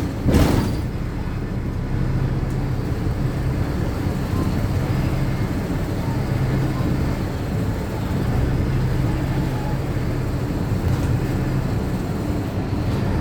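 City bus interior: the engine runs steadily with a low drone over road rumble. A short loud burst of noise comes about half a second in.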